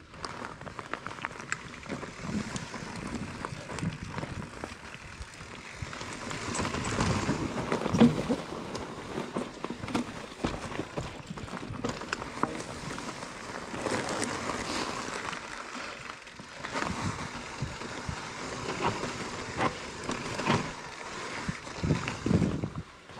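Mountain bike riding down a rough trail: tyres rolling over dirt and rock, with many short knocks and rattles from the bike, and one hard knock about eight seconds in.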